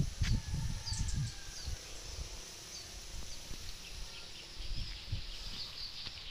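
Birds chirping outdoors: short, high chirps every second or so. Low rumbling noise on the microphone, heaviest in the first second, dies down after that.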